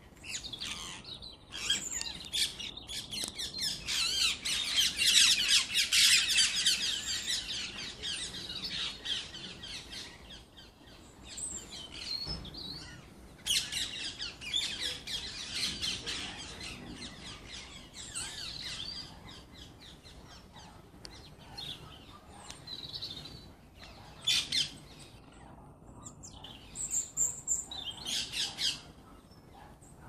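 A flock of parakeets calling with shrill chirps and screeches, loudest a few seconds in, then coming in shorter bouts with quieter gaps.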